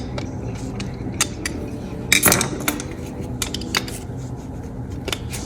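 Scattered light metallic clicks and clinks of screws and lock hardware being handled and fitted, with one louder knock about two seconds in.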